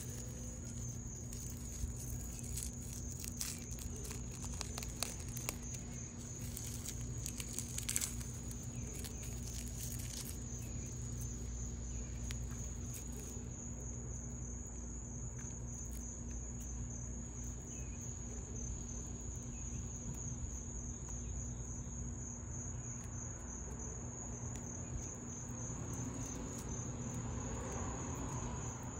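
Insects trilling steadily: a high, rapidly pulsing note that never stops. Over the first ten seconds or so come scattered small, dry crackles, the crinkle of a bearded dragon's loose shed skin being handled and peeled.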